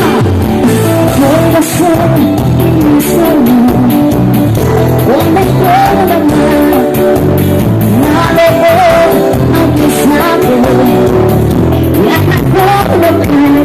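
A band playing a song with a lead singer: a sung melody over bass and drums, loud and continuous.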